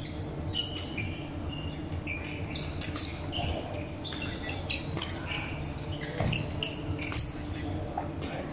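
Badminton being played in a large echoing sports hall: several sharp racket hits on the shuttlecock and many short, high sneaker squeaks on the wooden court floor, over a steady low hum.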